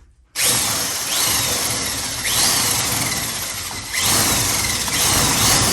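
A power tool cutting sheet metal for race car body decking. It starts suddenly and runs loud and steady, with a faint rising sweep about every second and a half.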